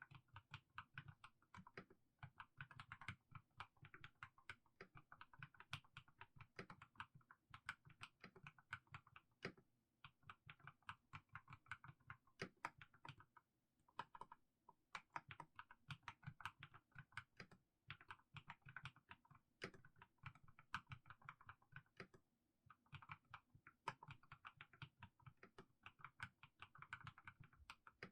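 Mechanical keyboard with fully lubricated Haimu Sea Salt switches being typed on slowly, a steady stream of soft keystroke clacks with short pauses about halfway through and again later.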